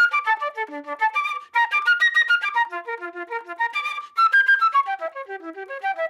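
Solo flute playing a fast, athletic ringtone melody: rapid notes leaping from the bottom of its register to the top. The phrases break off briefly about one and a half seconds in and again about four seconds in.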